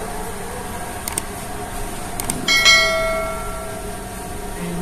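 A metal ladle strikes a metal pot about halfway through, giving one clear bell-like ring that fades over about a second. A couple of light clicks come before it, over a steady background hum.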